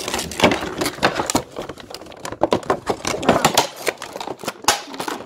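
Rapid, irregular clicks, knocks and scrapes of hard plastic toy packaging being jabbed and pried at with a phone charger plug.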